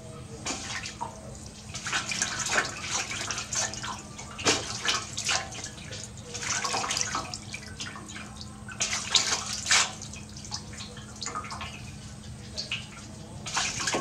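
Water splashing and sloshing in a large aluminium basin as hands rub and dip a small body in soapy water, in irregular bursts throughout.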